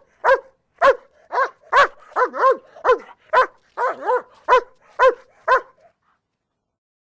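German Shepherd barking: about a dozen loud, deep barks at roughly two a second, some in quick pairs, stopping a little over five seconds in.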